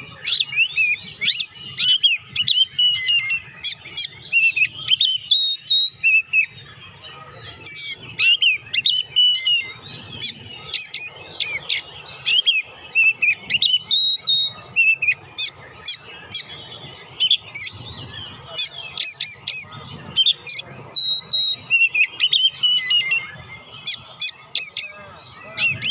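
Oriental magpie-robin singing in full voice: a fast, varied run of sharp whistles, chirps and squeaky notes, with a brief lull about six seconds in.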